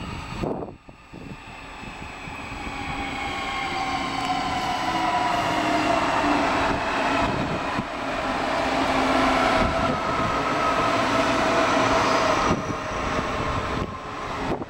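Munich S-Bahn electric multiple unit pulling into the platform and braking: its traction motors give a whine of several tones that fall slowly in pitch as it slows, over the rumble of wheels on rail. The sound eases off near the end.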